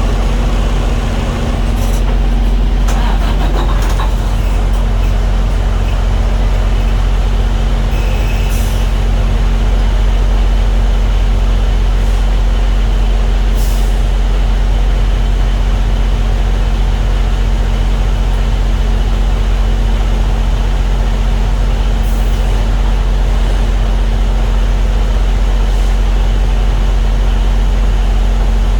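Diesel engine idling steadily, a low even drone, with a brief rattle about three seconds in and a few faint clicks.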